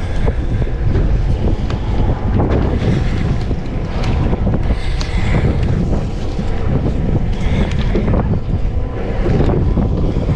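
Heavy wind rumbling on the microphone, with choppy water slapping and rushing against a small open boat in rough seas.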